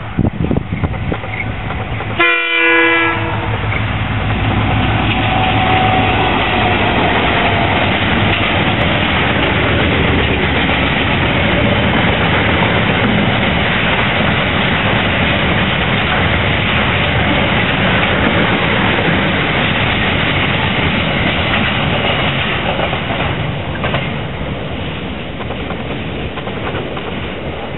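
A diesel freight locomotive gives one short horn blast about two seconds in. The container freight train then passes close by: a loud, steady rumble of wagons and wheels on the rails with clickety-clack, easing off a little near the end as the train moves away.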